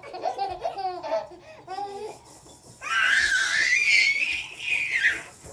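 Baby belly-laughing in quick, breathy bursts, then letting out a long high-pitched squeal of delight about three seconds in.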